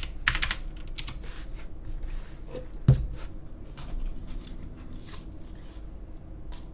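Handling noises at a desk: scattered light clicks and rustling, with one dull thump about three seconds in, like something set down on the table.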